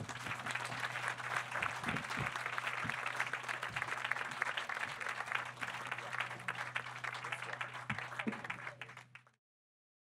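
Audience applauding: many hands clapping in a dense, steady patter that opens with a single sharp knock, thins a little near the end and cuts off abruptly about nine seconds in. A low steady hum runs underneath.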